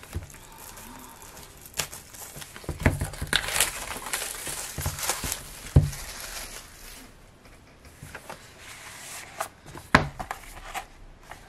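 Plastic shrink wrap being torn and crinkled off a CD album, with a few sharp knocks as the album is handled and set down on a table. Near the end the album's hard cover is opened with a tap.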